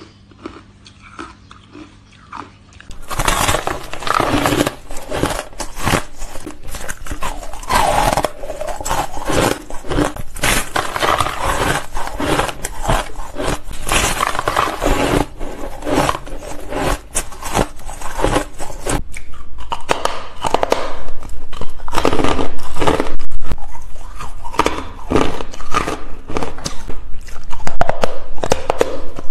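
Close-up crunching of ice being bitten and chewed, dense sharp crunches one after another. The first few seconds hold only a few soft bites and chews, then it turns much louder and busier about three seconds in.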